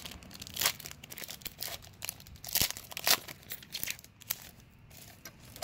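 Foil wrapper of a 2018 Donruss Optic baseball card pack being torn open and crinkled by hand: irregular crackling, with a few louder crackles in the first few seconds, then quieter handling toward the end.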